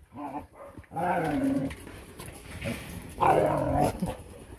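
Young dogs in a kennel run vocalizing: a short call near the start, then two longer barking, yowling calls, about a second in and around the three-second mark, the second rougher and the loudest.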